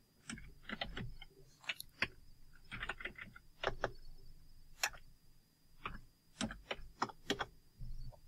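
Typing on a computer keyboard with mouse clicks: quiet, irregular key taps and clicks, over a faint steady high-pitched whine.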